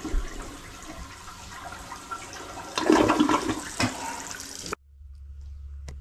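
Toilet flushing: water rushing and swirling down the bowl, with a louder gurgling surge about three seconds in, cut off suddenly near the end, leaving only a low steady hum. The flush drains into a sewer line with a back pitch, which limits how well it goes down.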